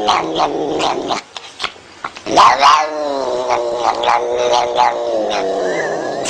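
A cat yowling in long, drawn-out calls, with a loud long call starting about two seconds in that slides down in pitch.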